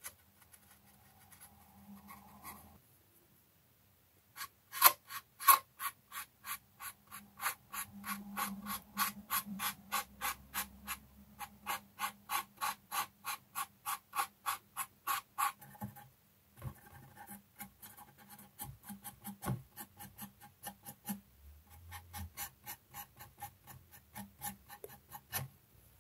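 Cotton bud wetted with enamel thinner scrubbing back and forth over a ridged, gloss-varnished plastic model part to lift enamel wash: a rhythmic scratchy rubbing of about three to four strokes a second. It starts about four seconds in and grows fainter for the last ten seconds.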